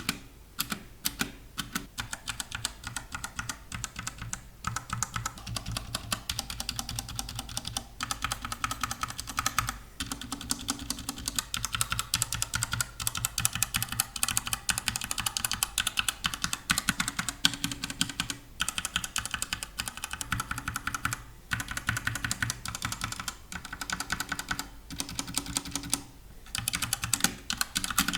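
Typing on a Redragon Dragonborn K630 60% mechanical keyboard with tactile Outemu brown switches: a quick, dense clatter of keystrokes without the click of blue switches, broken by a few short pauses.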